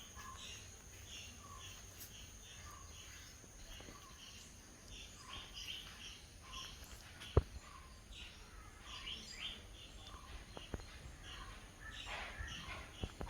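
Birds chirping outdoors: a steady run of short, repeated chirps over a background hiss. A sharp click about seven seconds in is the loudest sound, with a few fainter clicks later.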